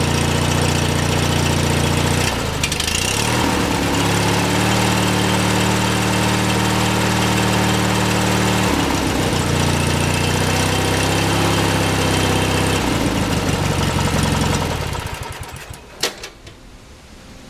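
18 hp Briggs & Stratton twin opposed-cylinder lawn tractor engine running steadily after its broken flywheel key was replaced, the misfire cured. The engine speed is raised a few seconds in, dropped, raised and lowered again, then the engine is shut off and runs down near the end, followed by a single sharp click.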